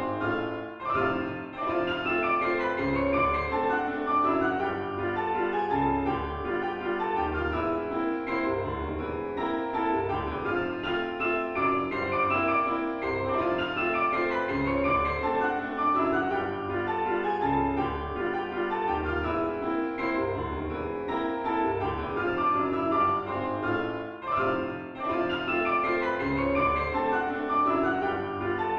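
Piano duet, four hands, playing ragtime: a syncopated melody over a steady oom-pah accompaniment of bass notes alternating with chords.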